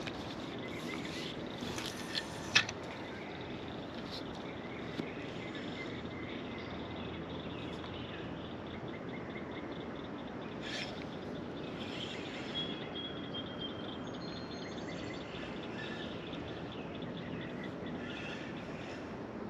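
Outdoor ambience of steady background noise with insects trilling and a few short bird chirps about two thirds of the way through. A few sharp clicks stand out, the loudest about two and a half seconds in.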